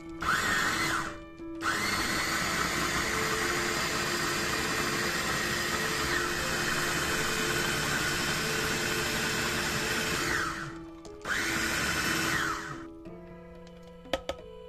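Electric mini food chopper with a glass bowl whirring in three runs: a short burst, a long run of about nine seconds, then another short burst, each spinning up and winding down as it blends yogurt with grilled bell pepper and spring onion. A few clicks near the end as the motor lid is lifted off.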